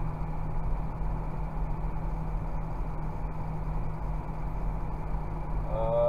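John Deere 6190R tractor's six-cylinder diesel engine running steadily, a constant low drone heard from inside the cab.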